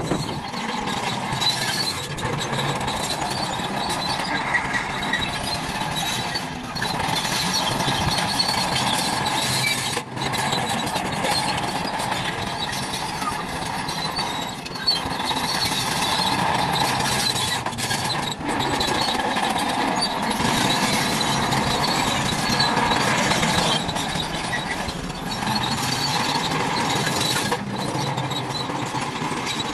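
Small electric motors and plastic gears of toy trucks and a toy bulldozer whirring and squealing, with a few brief breaks.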